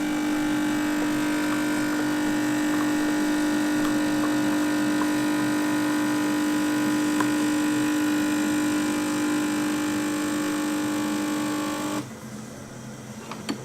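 Capsule coffee machine's pump buzzing steadily with a strong even hum, then cutting off abruptly about twelve seconds in.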